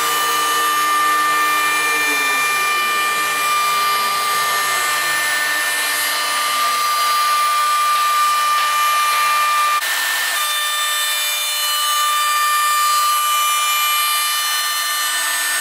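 Steady machine whine made of several high tones, with a lower set of tones falling in pitch a few seconds in; the sound changes abruptly about ten seconds in.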